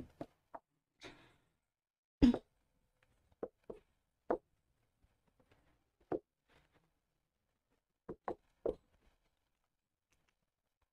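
Marker pen on a whiteboard: a scatter of short taps and scrapes as words are written, the strongest about two seconds in and a quick run of three near the end, with near silence between.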